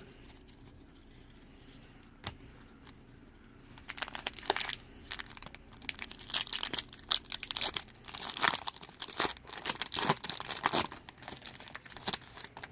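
Wrapper of a Topps baseball card pack being torn open and crinkled: quiet at first with a single click, then from about four seconds in a long run of sharp crinkles and tearing sounds.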